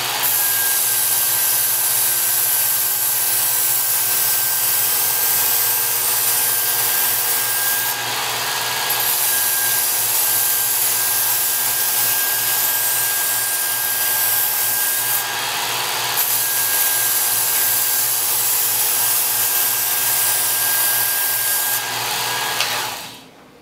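Work Sharp Ken Onion Edition electric belt sharpener running, its abrasive belt grinding a knife edge with a steady motor hum and a thin whine. The grinding changes briefly twice, and the sound dies away just before the end.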